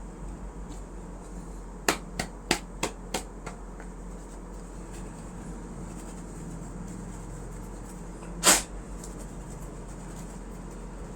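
Plastic laptop parts being handled: a quick run of about six light clicks, about three a second, then a single louder knock some six seconds later.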